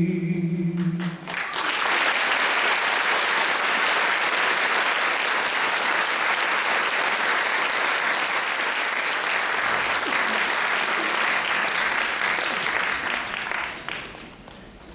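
The song's last held note cuts off about a second in. Then an audience applauds steadily, dying away near the end.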